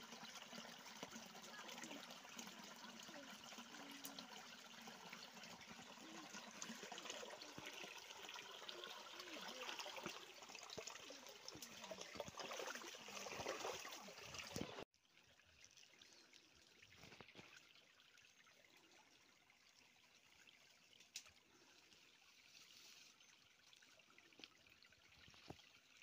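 Faint trickle of a shallow stream running over stones. About fifteen seconds in it cuts abruptly to a quieter, fainter hiss with a few small clicks.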